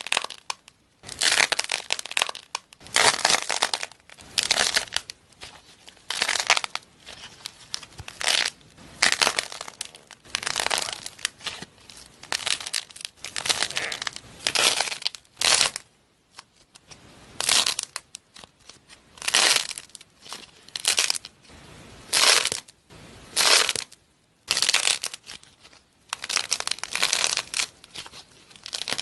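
Clay cracking in a long series of short crackling, crunching bursts, roughly one every second or so, with brief pauses between them.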